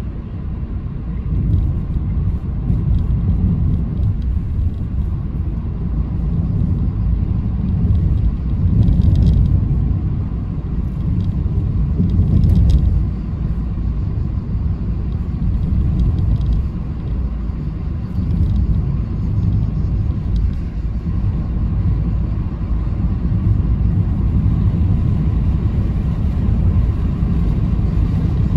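A car driving along the road: a steady low rumble of engine and tyre noise that swells a little at times.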